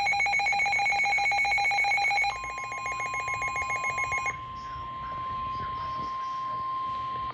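NOAA Weather Radio alert signal: the harsh pulsing buzz of the SAME digital header, stepping down in level about two seconds in. From about four seconds in comes the steady single-pitched 1050 Hz warning alarm tone, the signal that a severe weather warning is about to be read.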